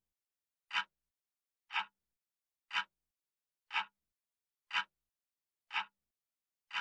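A clock ticking once a second, seven even ticks with nothing in between, laid in as a sound effect.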